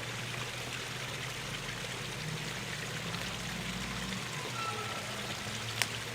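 Steady hum from a step-up transformer energized at about 500 volts, over a steady hiss, with one sharp click near the end. Nothing bursts: the power supply it feeds does not fail.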